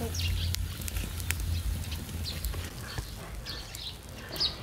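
Sparse, irregular crackles and pops from a wood-and-charcoal cooking fire under a grilled tilapia, with faint high chirping of small birds and a low steady rumble underneath.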